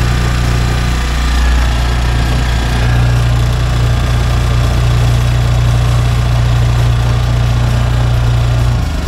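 Denyo GE-550 portable generator's Robin engine running at a steady speed, powering a light bulb, no longer hunting now that the governor spring is refitted and the air leak fixed. Near the end it is switched off and the steady hum breaks up.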